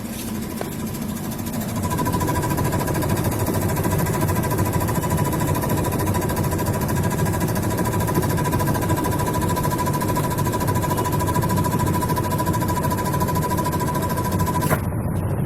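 Videocon VNA811 washing machine spinning with a loud rumble and a steady whine, building up over the first two seconds. This is the abnormal spin-cycle noise that the owner traces to the gearbox lever setting.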